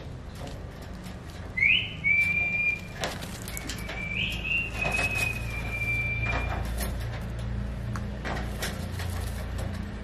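Alexandrine parakeet whistling twice, each whistle swooping up and then held on one tone; the second is longer, about two and a half seconds. A few sharp clicks come as it climbs the cage wire, over a low steady hum.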